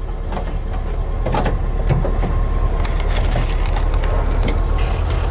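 1970 Volkswagen Transporter's freshly rebuilt air-cooled flat-four engine idling, heard from inside the cab, with scattered light clicks and knocks.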